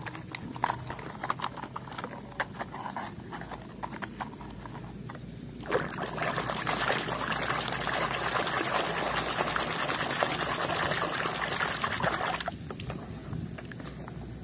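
Water in a washtub: scattered drips and small splashes, then about six seconds of continuous sloshing as a hand scrubs a muddy plastic toy vehicle under the water, easing back to drips near the end.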